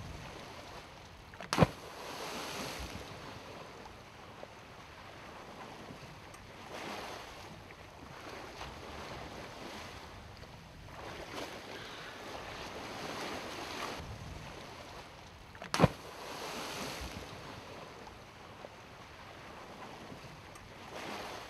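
Wind and sea water washing around a boat on open ocean, with two sharp, loud slaps, about a second and a half in and again some fourteen seconds later, each followed by a brief rush of splashing noise.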